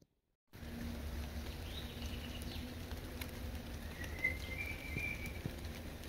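Sound cuts in about half a second in. A bird calls twice over a steady low rumble: a short call, then a longer thin whistle that rises slightly.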